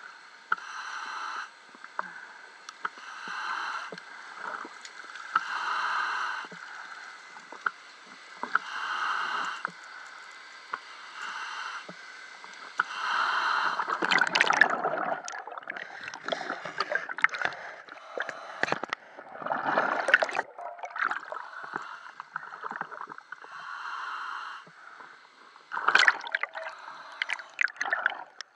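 Underwater scuba breathing: rhythmic hissing and bubbling from a diver's regulator, repeating about every second and a half. About halfway through comes a louder rush of air bubbles, followed by irregular bubbling and clatter.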